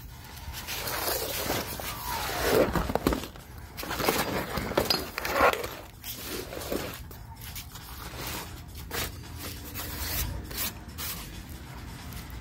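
Empty punching bag cover being handled and shifted on concrete, its material rubbing and scraping, loudest in the first half with a few brief squeaks. Quieter scattered clicks and rustles follow.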